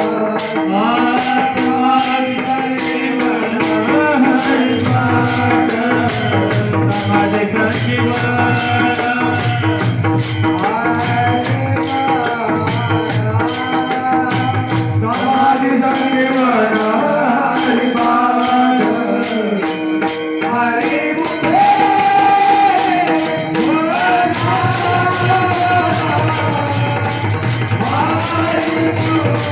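Devotional singing: a male voice sings a melodic line over a pakhawaj drum, with small hand cymbals keeping a steady, quick beat throughout.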